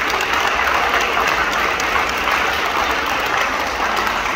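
Crowd applauding steadily, a dense clapping.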